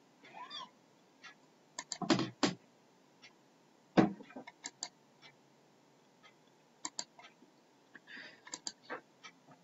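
Irregular clicking of a computer mouse as layer styles are picked, single and double clicks, with a louder cluster of knocks about two seconds in and one sharp knock about four seconds in.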